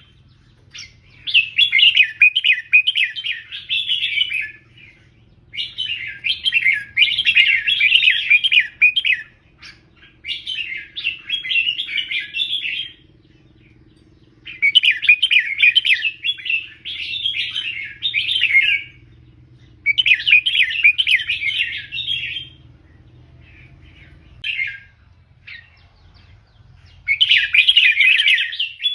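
Red-whiskered bulbul singing, about six quick warbling phrases of three or four seconds each, with short pauses between them and a few single notes near the end.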